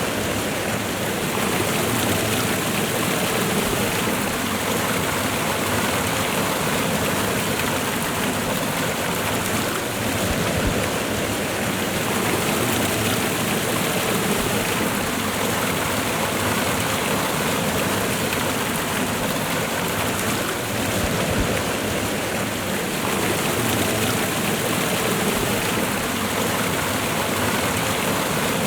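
Waterfall and fast river water rushing in a steady, even roar of running water.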